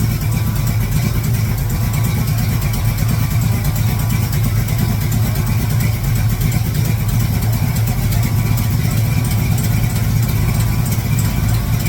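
1966 Chevrolet Impala's big-block V8 idling steadily while it warms up to operating temperature.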